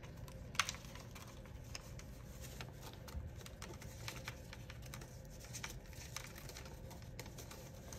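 Paper banknotes being handled and pulled from a clear acrylic cash tray: light rustling with small irregular clicks and taps, over a faint steady hum.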